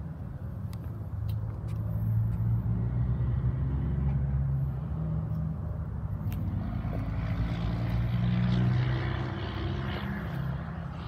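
Chevrolet Silverado dually pickup's engine idling with a steady low hum. A broader rushing noise swells about seven seconds in and eases off near the end.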